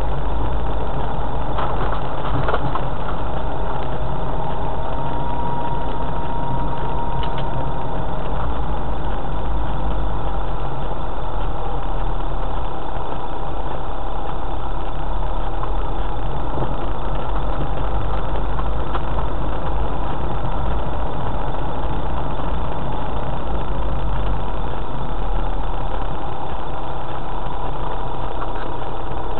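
A 4x4's engine and tyre rumble heard from inside the cab as it drives along a rough, rutted lane: a steady low drone, with a few faint knocks about two seconds in.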